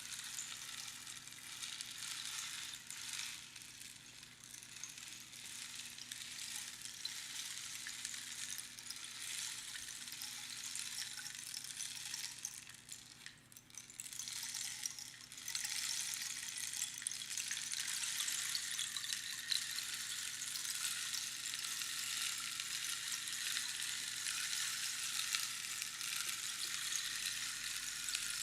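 A rainstick: small pebbles or beans cascading through the hollow tube past its inner pins, making a steady crackling hiss like falling rain. About halfway through, the flow dies away briefly and then starts again, louder, as a new pour begins.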